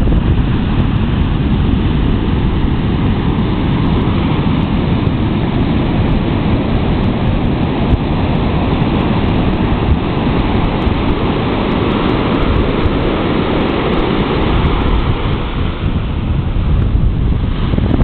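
Pacific Ocean surf breaking and washing up onto a sand beach as a steady rush of water, with wind buffeting the microphone.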